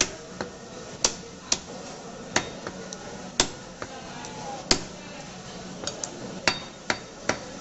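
Cleaver chopping through chicken: a string of sharp, irregularly spaced chops, about fifteen in all, over a steady background noise.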